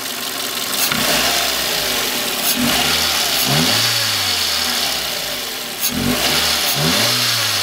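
Mazda 323F's 1.5-litre 16-valve DOHC four-cylinder engine idling and revved up briefly twice, rising and falling in pitch each time. It revs cleanly with no hesitation on freshly fitted Magnecor KV85 ignition leads, the stutter from a misfire gone.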